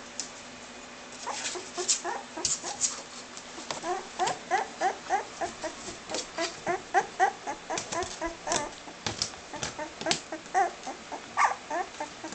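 Shetland sheepdog puppy whimpering in a quick series of short, high cries, about two to three a second, with a few sharp clicks among them.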